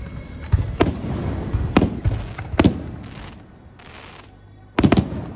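Aerial firework shells bursting overhead, one sharp bang after another with crackling and hiss trailing between them, ending in two loud bursts close together.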